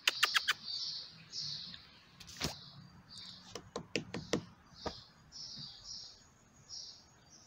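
An insect chirping in a soft, high pulse about twice a second, with sharp clicks on top: four quick ones at the start and a cluster of them about halfway through.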